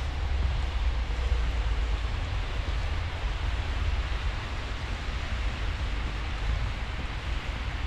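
Steady outdoor street noise on a snowy road: a deep, fluttering rumble with an even hiss above it, and no distinct events.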